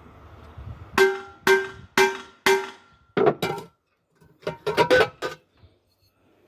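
Metal being struck on a pressure cooker during repair: four ringing blows about half a second apart, two more, then a quick run of five or six strikes.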